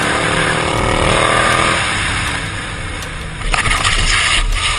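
Loud rushing noise with an engine drone rising in pitch during the first two seconds, then a louder surge of rushing noise about three and a half seconds in.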